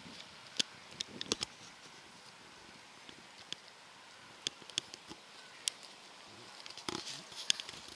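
Sheep cropping grass at close range: irregular short, crisp snaps and tears as they bite and pull the grass, over a faint steady outdoor hiss.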